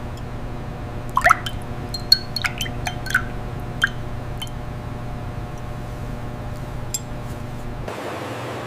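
Steady machinery hum with a scatter of sharp glassy clinks and drips of liquid in the first few seconds. Near the end the hum gives way to a steadier hiss.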